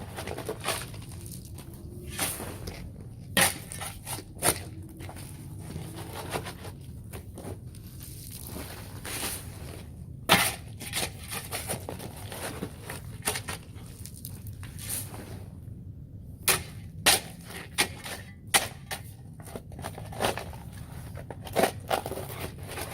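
Spade shovel digging into dirt and gravel: irregular crunching and scraping strikes, one every second or so, a few of them sharply louder.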